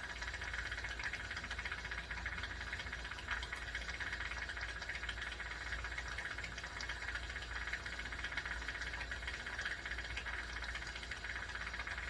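Jeweler's soldering torch flame hissing steadily, with a low rumble under it.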